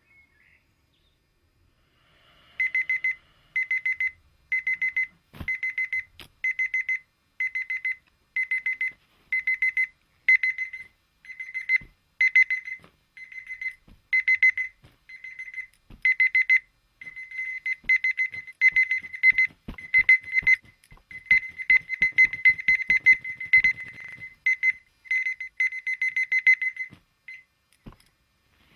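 Dumbbell alarm clock ringing: a high electronic beeping in short bursts about once a second, the bursts crowding closer together later on, with scattered knocks and clicks. The beeping cuts off near the end.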